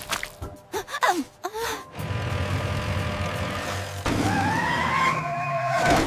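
Cartoon soundtrack with background music under animated characters' gasps and cries. Short sliding vocal sounds come in the first two seconds, and a drawn-out rising cry fills the last two.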